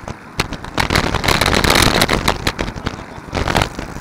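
Riding noise picked up by a camera on a moving road bicycle: a dense crackling rattle with sharp knocks, loudest for about a second and a half starting about a second in.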